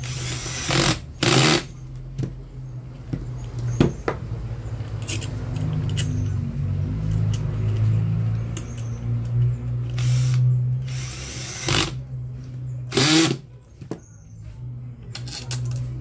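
Cordless drill-driver run in short bursts, driving the screws that close the fan motor's housing: two quick runs at the start and three more about ten seconds in.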